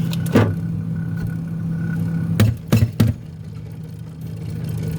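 Steady electric motor hum with a faint high whine. It stops about two and a half seconds in, among a few sharp knocks, then starts again near the end.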